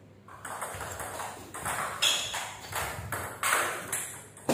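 Table tennis rally: the ball clicking off the bats and bouncing on the table, a run of sharp clicks roughly two a second.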